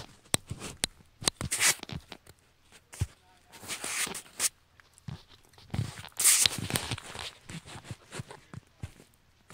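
Footsteps scuffing on bare ground, with irregular clicks and louder bursts of rustling from clothing and the phone being handled, near 1.5 s, 4 s and 6–7 s.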